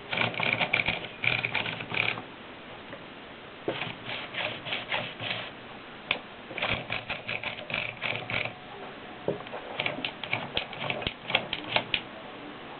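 A 1920s Erika manual typewriter being typed on: four runs of quick keystrokes clacking, with short pauses between them.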